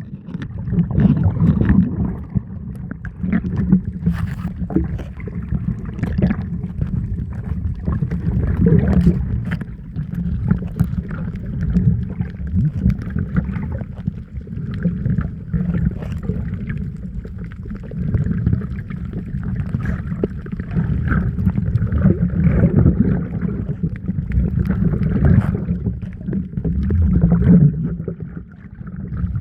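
Muffled, continuous low rushing and sloshing of sea water around the camera, with scattered small clicks and surges.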